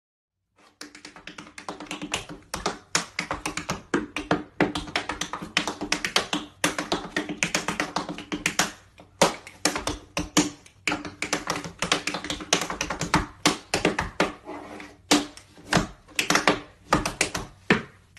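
Tap shoes striking a wooden floor in quick, rhythmic runs of sharp taps and heavier stamps, with short pauses between phrases: a tap dance. It starts about a second in.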